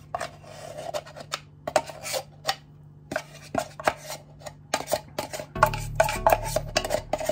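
Metal spoon clinking and scraping against a stainless steel mixing bowl in quick, irregular strokes as a thick creamy mixture is stirred. Background music comes in more strongly a little over five seconds in.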